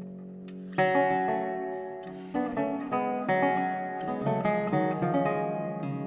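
Long-necked baroque lute being plucked. Ringing notes fade, then about a second in a loud chord is struck, followed by a string of plucked notes and chords that ring and die away.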